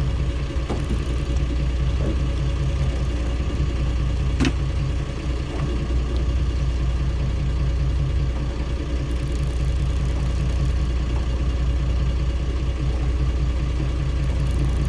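Fishing boat's engine running steadily with a low drone, with a single sharp click about four and a half seconds in.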